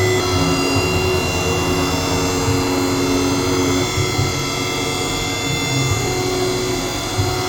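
CNC milling machine running: a steady whine of several high tones over a low, uneven rumble.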